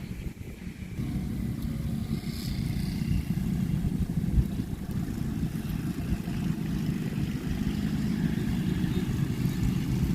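An engine running steadily with a low, even hum that gets louder about a second in, with one brief louder knock partway through.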